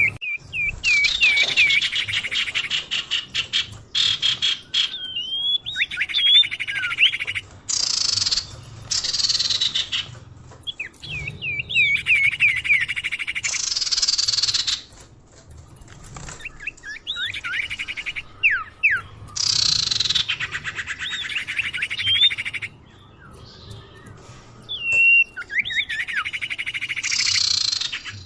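Recorded songbird calls played as a bird lure: curling whistled notes alternating with fast buzzy trills and falling sweeps. Phrases are broken by short pauses and repeat in a loop.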